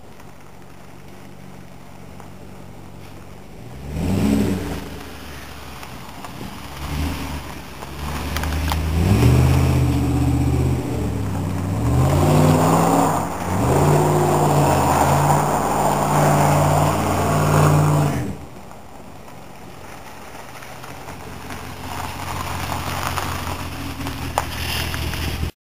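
Pickup truck engine being revved hard as the truck is driven around, the pitch rising and falling over and over. It is quiet for the first few seconds, loud through the middle, and drops back to a quieter steady run for the last several seconds.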